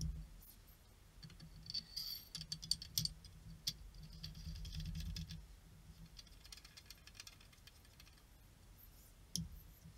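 Kalibrgun Cricket air rifle being handled on the bench. A knock as it is set down, then light clicking and rattling of its metal parts for a few seconds, then quieter, with one more click near the end.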